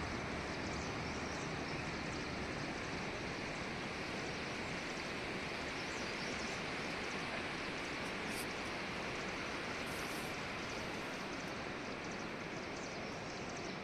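River water rushing in a steady, even roar with no change in level.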